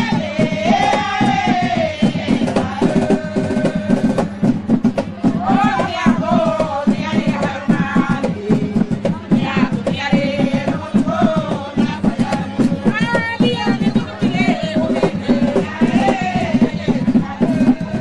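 A group of women singing a Garifuna song together over wooden hand drums beating a quick, steady rhythm.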